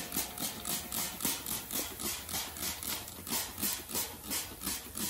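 Hand trigger spray bottle being pumped rapidly, about three squeezes a second. Each squeeze gives a short spritz of mist onto corrugated galvanized roofing metal.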